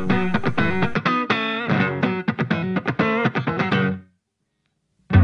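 Guitar-driven outro music that stops abruptly about four seconds in. After a second of silence, louder music starts just before the end.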